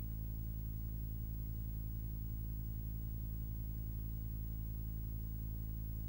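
A steady low hum that does not change at all.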